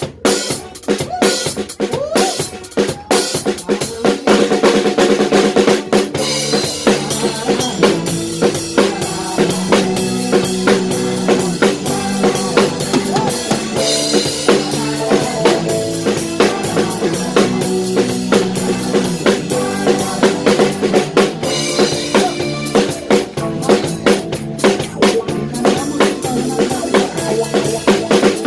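Drum kit played live in an upbeat worship song: kick, snare and cymbals keep a brisk steady beat. About four seconds in, the rest of the band comes in with sustained chords and bass under the drums, and cymbal washes mark the phrases.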